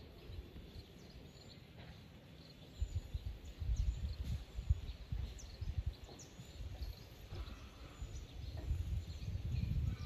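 Wind buffeting the microphone in gusts, strongest from about three seconds in, over many faint, short, high chirps of munias.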